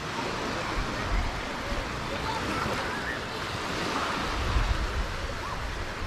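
Baltic Sea surf washing onto the beach. Wind buffets the microphone, most strongly in the second half, and faint distant voices of people on the beach are heard.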